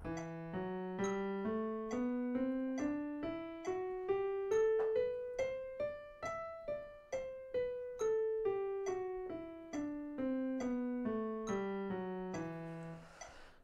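Digital piano playing an E natural minor scale over two octaves, one note at a time at an even, moderate pace: it rises from the low E to the E two octaves above, then comes back down to the starting note.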